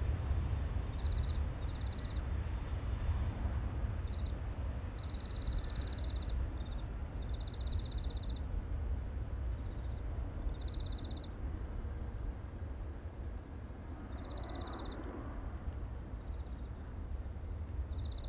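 Low, distant rumble of a jet airliner's engines, slowly fading as it rolls away down the runway. Short, high-pitched insect trills repeat over it every second or two.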